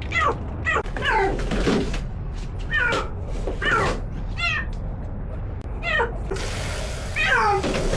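Domestic cat meowing over and over while being given a bath, about eight drawn-out calls that each fall in pitch.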